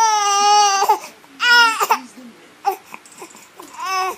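Baby crying in three high-pitched wails, the first the longest at nearly a second. It is a put-on cry, made on request.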